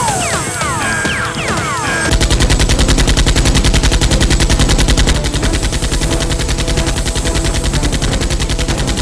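Machine-gun fire sound effect laid over the Nerf battle: rapid, even automatic fire starting about two seconds in, loudest for the following three seconds. Before it, falling whistle-like tones repeat.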